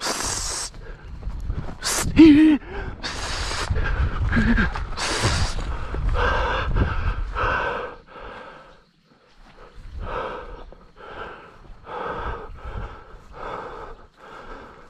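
A person panting hard while moving fast on foot, with a heavy breath about every three-quarters of a second. In the first few seconds, loud rustling and thumps on the microphone and a sharp click about two seconds in.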